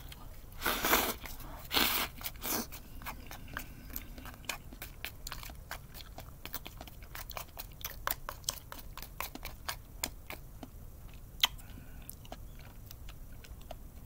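A man eating natto with chopsticks: chewing, with two louder noisy bursts in the first few seconds, then a long run of small clicks and smacks of mouth and chopsticks that thins out near the end.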